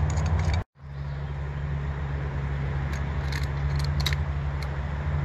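A steady low engine-like hum, with a few short metallic clicks about three to four seconds in from wrenches tightening a steel pipe coupler. The sound cuts out for a moment near the start.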